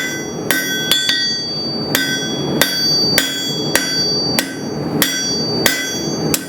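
Steady hammer blows on a hot railroad spike on an anvil, about one every half second to second, each strike ringing. The spike's end is being drawn out longer and thinner.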